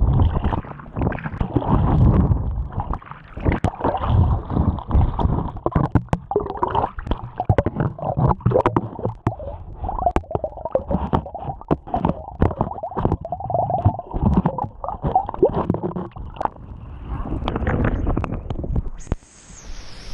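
Water splashing and gurgling around a body-worn camera as a swimmer strokes through a river, the camera dipping under water so the sound turns muffled and bubbly, with many small pops and splashes.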